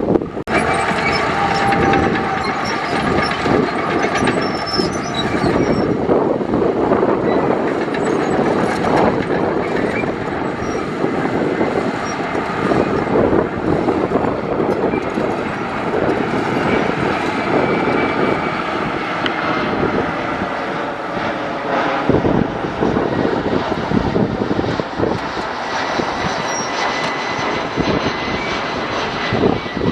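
Heavy diesel earthmoving machinery working: engines running under load with constant clanking and rattling of steel, and a faint high whine drifting slowly lower.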